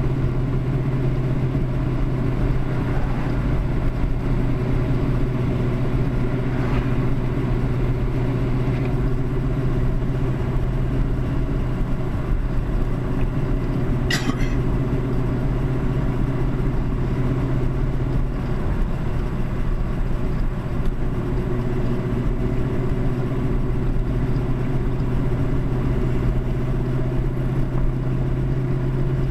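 Steady low drone of cars cruising on the road: engine, tyre and wind noise heard from inside the following car, mixed with the loud unfiltered exhaust of the modified Chevy II drag car just ahead, blowing in through the open windows. A single sharp click sounds about halfway through.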